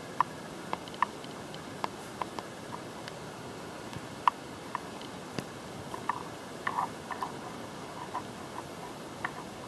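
Light, irregular clicks and taps over a steady hiss, from a person walking across bare flooring with a handheld camera.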